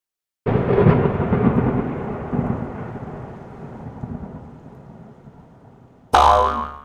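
Thunderclap sound effect: a sudden crash about half a second in, then a rumble that dies away over about five seconds. Near the end, a short, loud pitched transition sound.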